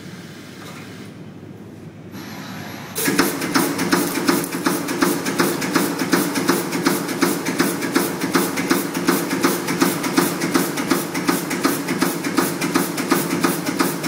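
PCB auto insertion machine at work: a low steady hum, then about three seconds in a much louder rapid, evenly repeating mechanical clatter from the pneumatic insertion head starts up over a steady drone, and keeps going.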